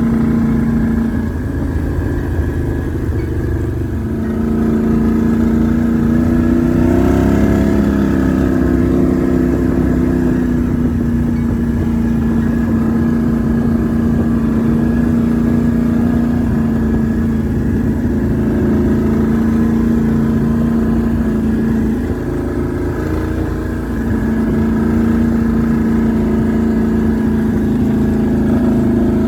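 Can-Am Renegade 1000 XMR ATV's V-twin engine running steadily under way, its revs rising briefly about seven seconds in.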